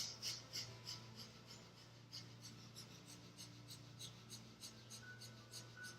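Kundalini breath of fire: rapid, even, forceful breaths through the nose, about three a second. The breathing is faint and is a little louder in the first couple of seconds before settling to a softer steady pace.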